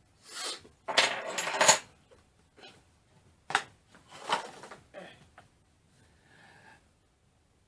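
Small metal keychain being handled, clinking, with rustling of its packaging and a few sharp clicks.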